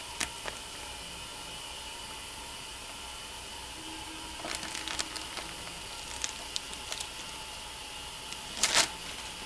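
Decal transfer paper rustling and crinkling in short bursts as it is rubbed down and peeled back from the lettering, with the loudest crinkle near the end, over a steady hiss.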